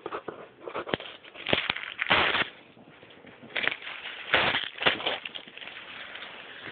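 Wrapping paper being ripped off a gift-wrapped cardboard game box: a series of tearing rips and crinkling rustles, loudest about two seconds in and again around four and a half seconds in.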